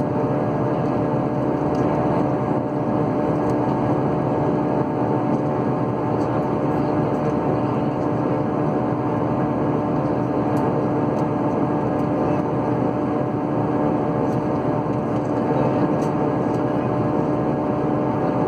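Aircraft in flight heard from inside the cabin: a steady rushing drone with a constant engine hum, unchanging throughout.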